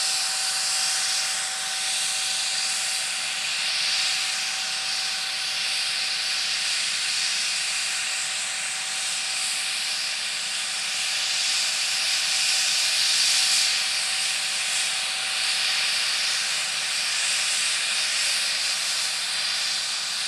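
MD 902 Explorer helicopter's turbine engines running steadily on the ground: a loud, even hissing rush with one constant whining tone.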